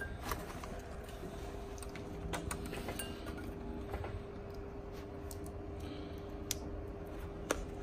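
Small clicks and rattles of cables and a USB plug being handled and plugged into a car head unit's wiring against its metal chassis, a few separate sharp clicks over a steady low hum.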